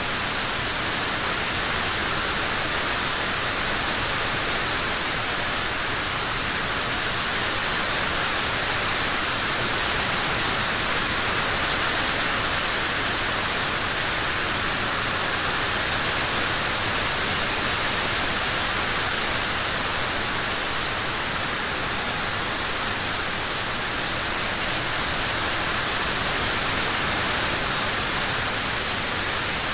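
Steady rain falling, a dense, even hiss that holds at the same level throughout, with no single drops or thunder standing out.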